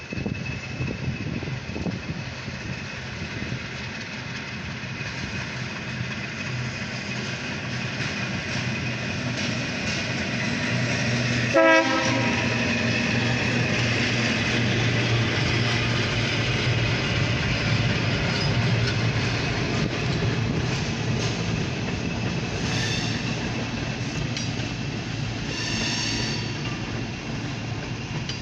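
A short tank-car freight train hauled by a diesel locomotive rolling steadily past, the engine humming under the wheel noise. A brief horn blast sounds about halfway through, and a couple of short high-pitched squeals come near the end.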